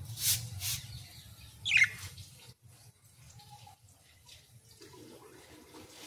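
A budgerigar gives a single short chirp that falls in pitch about two seconds in, after two brief hissy sounds at the start.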